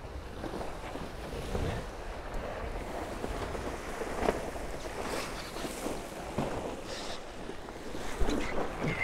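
Tornado racing catamaran under sail: hulls rushing through the water with steady wind noise buffeting the microphone, and a few louder splashes, the strongest about four seconds in and near the end.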